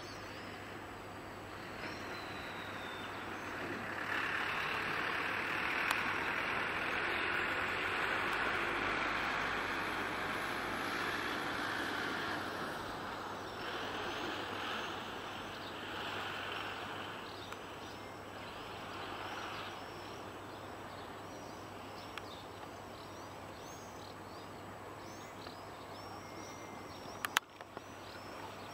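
Outdoor ambience: the noise of a passing road vehicle swells and fades over about ten seconds, then small birds chirp repeatedly, with a single sharp click near the end.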